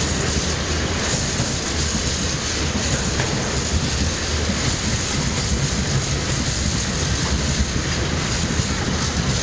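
Freight train tank wagons rolling past close by: a steady, even noise of steel wheels running on the rails.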